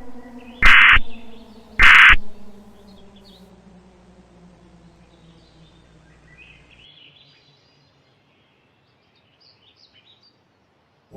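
Two short, loud bursts of Emergency Alert System end-of-message data tones, a harsh digital warble, a little over a second apart. They play over a low droning tone that slowly sinks and fades out, and faint bird-like chirps follow, trailing off into near silence.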